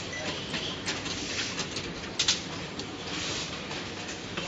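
Automatic rotary soldering machine running: a steady mechanical hiss and whir with scattered small clicks, and a sharper click about two seconds in.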